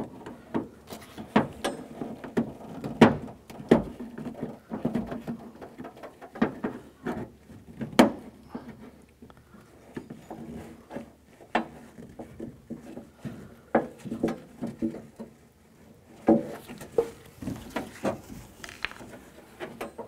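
A screwdriver scraping and prying at a plastic connector clip inside a pickup truck's steel door, working the door latch's wiring connector loose. Irregular scrapes with scattered sharp clicks and knocks, the loudest about three and eight seconds in.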